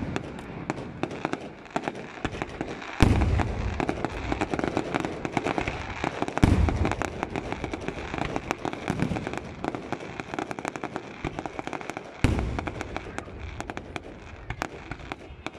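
Fireworks display: aerial shells bursting with three heavy booms, about three seconds in, past six seconds and past twelve seconds, over a continuous rapid popping and crackling of firework stars.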